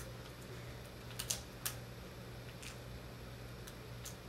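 Scattered light clicks and ticks from hands working at the back of a laptop LCD panel, freeing its taped-down video cable connector, with a few sharper clicks about a second and a half in. A faint steady hum runs underneath.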